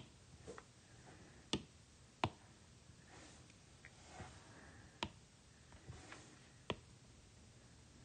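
Stylus tapping on a tablet's glass screen: about five sharp, short clicks at uneven intervals, with a few fainter taps between them.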